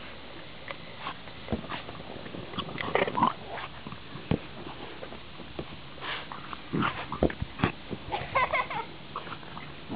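A French bulldog and a miniature dachshund play-wrestling. There are short dog vocal sounds around three seconds in and a quick run of them near the end, among scattered knocks and bumps.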